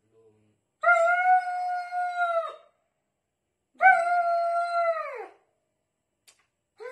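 A dog howling in distress: two long cries, each holding one pitch and then falling away at the end, with a third beginning near the end. The dog has been poisoned by a toad.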